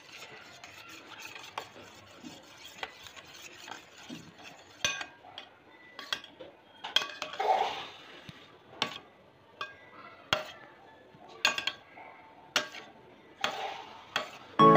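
Steel spoon stirring curd and sugar in a steel bowl. It clinks against the bowl in irregular taps, each with a short metallic ring, over a soft scraping. Music comes in at the very end.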